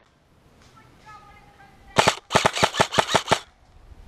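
Airsoft rifle fired in a rapid string of about eight sharp shots lasting a little over a second, starting about two seconds in.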